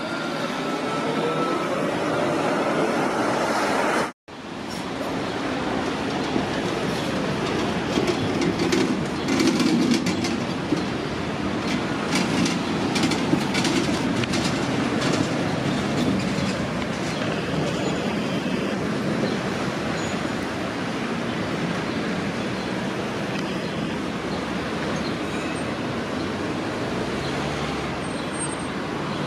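V3A-93 articulated electric tram running slowly through a tight turning loop, a steady rumble of wheels on rail. Sharp clicks come between about 8 and 16 seconds in as it crosses rail joints. The sound cuts out abruptly for a moment about four seconds in.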